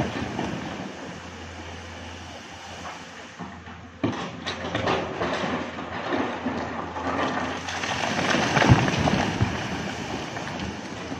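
Earth and rock dumped over a cliff edge by an excavator, sliding and clattering down the rock face as a rushing rumble. A fresh surge starts suddenly about four seconds in and is loudest near the end.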